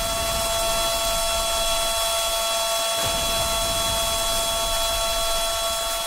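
Outdoor warning siren sounding one steady, unwavering tone over a continuous hiss like rain.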